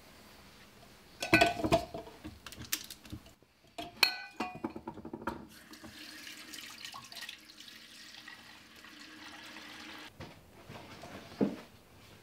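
Ice cubes and a metal spoon clinking against a drinking glass, in two short runs of ringing clinks, followed by a few seconds of soft steady hiss and a single knock near the end.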